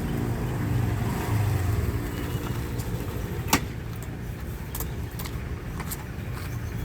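Diesel locomotive engine running with a steady low drone, with one sharp click about three and a half seconds in.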